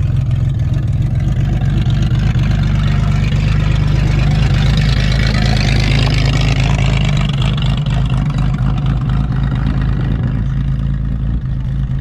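Engine running steadily, with a higher rushing noise that swells up in the middle and fades away.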